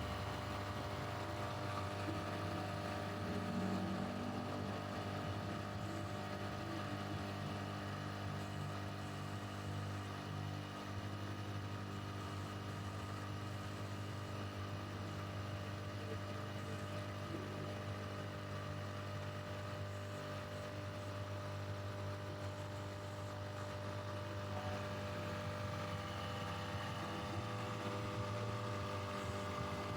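A steady mechanical drone, like a motor or blower running, with a strong low hum that holds even throughout.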